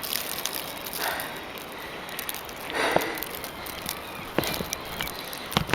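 Blowing snow crackling against a plastic Ziploc bag wrapped over the camera: a constant crackle of many tiny ticks over a hiss, swelling briefly about one and three seconds in.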